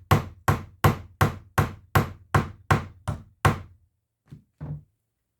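A hammer repeatedly striking the setting tool of a gripper-stud (popper) kit to press the fastener's prongs through fabric and curl them over. About ten sharp, even blows come at roughly three a second, then stop, followed by two faint short knocks.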